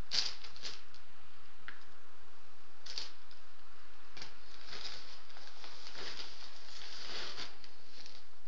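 Plastic bags and paper packaging rustling and crinkling as they are handled, in a string of short bursts. The loudest burst comes right at the start, with a longer run from about five to seven and a half seconds in.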